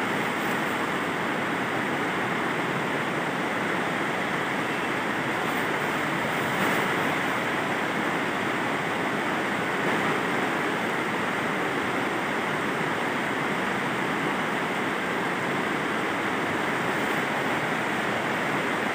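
Steady rain falling on the plastic-film roof of a greenhouse, heard from inside as an even, unbroken hiss.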